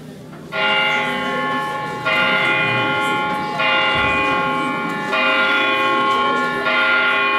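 Church bell tolling, five strikes about a second and a half apart, each ringing on into the next.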